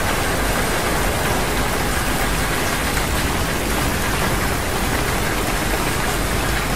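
Steady, loud rain-like hiss with no pitch or rhythm, unchanging throughout.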